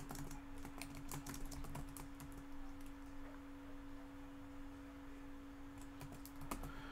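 Computer keyboard typing: faint, irregular key clicks in short runs, thicker in the first couple of seconds and again near the end, over a steady low hum.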